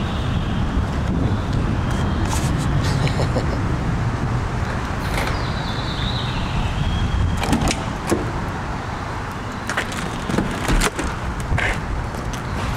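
Scattered clicks and knocks of a BMW sedan's door being unlocked and opened, over a steady low rumble.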